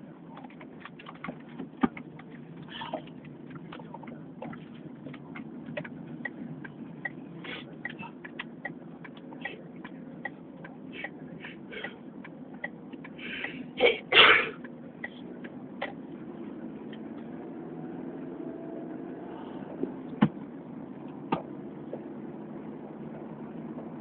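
A person sneezing once, loudly, near the middle: a short sharp intake followed straight away by the explosive sneeze. Underneath is a steady low hum with scattered small clicks.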